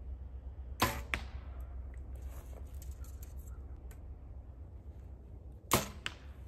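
Two compound bow shots about five seconds apart, each a sharp snap of the string on release with a short ringing tail, followed about a third of a second later by a fainter knock.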